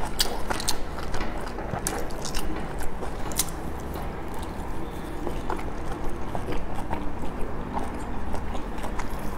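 Close-up sound of a person biting into and chewing soft dumplings, with sharp mouth clicks and smacks that come thickest in the first few seconds and thin out later.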